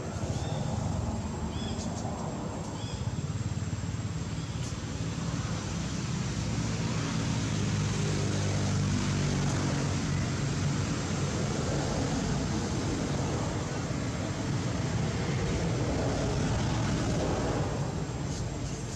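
Low, steady rumble of a motor vehicle's engine, growing louder from about a third of the way in and easing off near the end, with a thin constant high whine above it.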